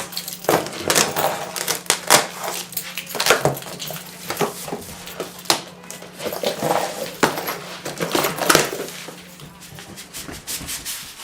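Irregular clicks, taps and light clatter of small hard objects being handled, over a steady low hum that stops near the end.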